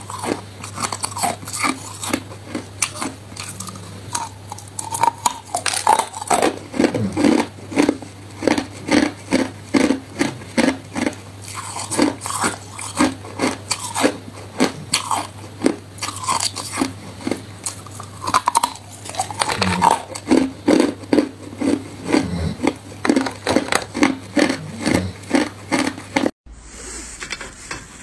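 Hard, clear ice cubes being bitten and chewed: a steady run of sharp crunches and cracks, with chews coming about two a second. Near the end the crunching cuts off suddenly.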